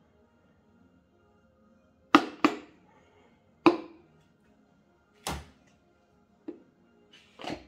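Six sharp knocks from hand work on the engine, two in quick succession about two seconds in, then single ones roughly every second or so, each with a short ringing tail. Faint background music runs underneath.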